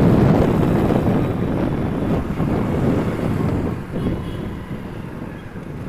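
Wind rushing over the microphone of a moving Hero Splendor motorcycle, with engine and road noise beneath; the rush fades steadily as the bike slows.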